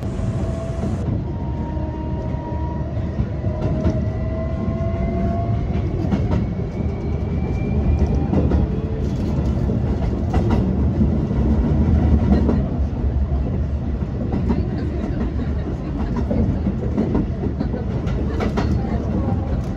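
Hankyu 2300-series electric train heard from inside the carriage while running: a steady rumble of wheels on rails, with clacks over rail joints and points. A faint whining tone rises slowly through the first several seconds.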